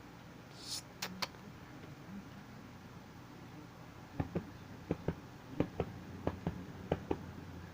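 Sharp clicks over faint room hum: two at about one second, then about ten more, mostly in close pairs, over the last few seconds.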